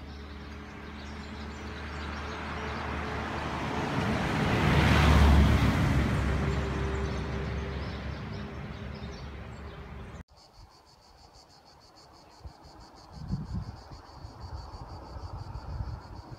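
A motor vehicle driving past, its engine hum and road noise swelling to a peak about five seconds in and then fading. After a sudden cut, a steady high-pitched insect buzz with wind gusting on the microphone.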